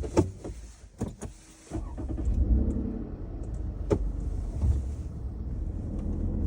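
Car engine switched off by its push-button start while coasting: a quiet cabin with a few sharp clicks. About two seconds in, a low engine rumble starts and keeps running steadily, with another click partway through.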